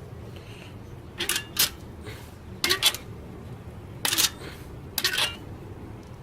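A metal bicycle kickstand being swung up and down on a mountain bike. It gives sharp metallic clacks, mostly in pairs, about once every second or so as it hits each end of its swing.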